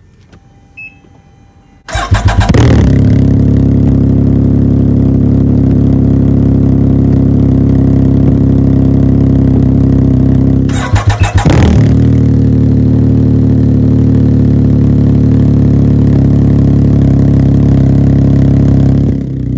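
The 2022 Can-Am Ryker 900 ACE's three-cylinder engine, breathing through an aftermarket Silber turbo exhaust with its baffle in, cranks and starts about two seconds in, then idles loud and steady. About halfway through the note breaks off briefly and the engine is cranked and started again, idling steadily once more.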